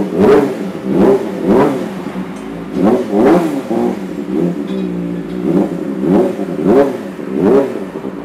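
Kawasaki ZX25R inline-four engine through an Arrow Pro-Race exhaust, idling and blipped about ten times in quick succession, each rev rising and falling sharply in pitch.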